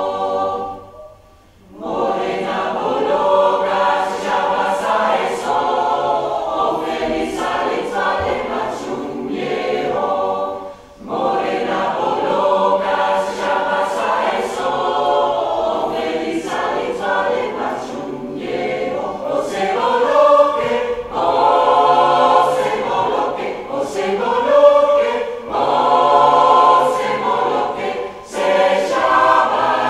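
Mixed choir of men and women singing in harmony, with a short break between phrases about a second in and another brief one around ten seconds in.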